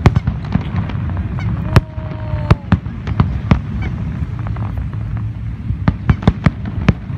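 Aerial fireworks display, shells bursting in quick, irregular succession as sharp bangs over a steady low rumble.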